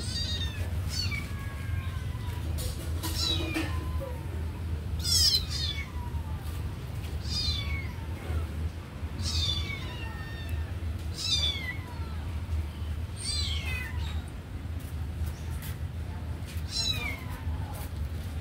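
Kitten meowing over and over, high thin calls that fall in pitch, about one every second or two, over a steady low hum.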